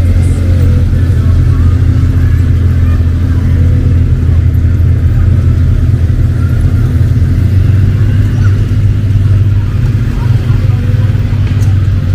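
ATV engines running at low speed as they pass close by, a steady low engine note with no revving. Faint voices of onlookers sit underneath.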